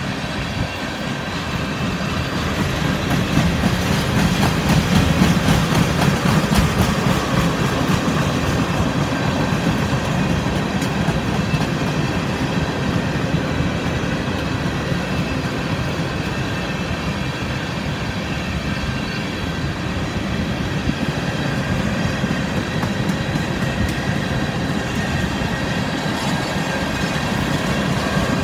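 A CSX freight train of tank cars rolling steadily past at track side: a continuous rumble of the cars with the clickety-clack of their wheels over the rail joints.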